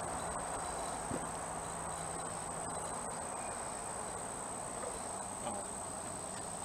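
Insects in the trees keeping up a steady, unbroken high-pitched drone on one note.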